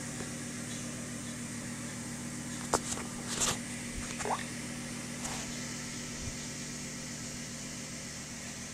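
Steady low mechanical hum with a faint hiss, with a few short clicks about three seconds in and a brief faint rising tone just after four seconds.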